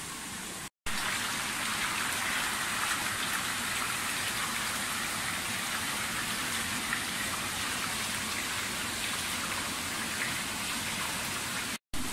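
Water splashing and churning steadily in a crowded fish-farm tank, with two very short dropouts, about a second in and near the end.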